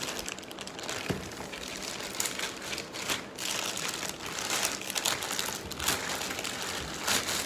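Plastic courier mailer bag crinkling and crackling irregularly as it is handled and pulled open by hand at its sealed top.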